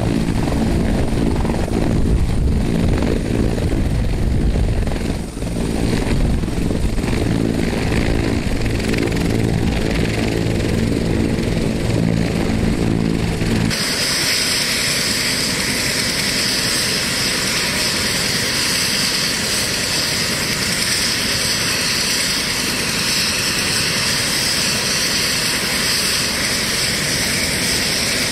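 Fire department rescue helicopter hovering in to land, its rotor making a deep, steady beat. About halfway through, close beside the running helicopter, the sound turns to a loud, steady rush of rotor downwash with high turbine noise.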